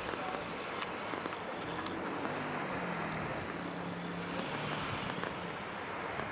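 Wind on the microphone and surf washing on the shore, with a low engine hum that comes in about two seconds in and fades near the end, and a couple of faint clicks.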